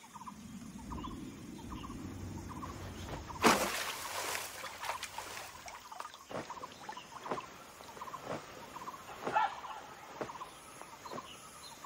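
Short chirping animal calls repeating, with a low rumble at first and a loud sudden crash about three and a half seconds in. In the second half, water splashes come about once a second.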